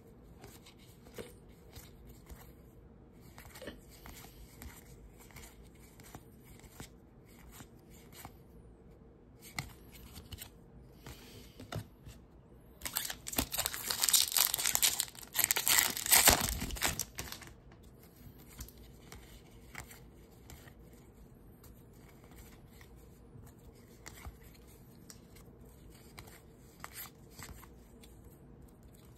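Soft scattered flicks and rustles of trading cards being thumbed through in the hand. About 13 seconds in, a Topps baseball card pack's wrapper is torn open with loud crinkling and tearing for about four seconds.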